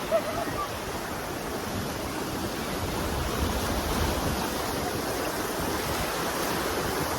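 Sea waves washing steadily, an even rushing wash with no distinct breaks.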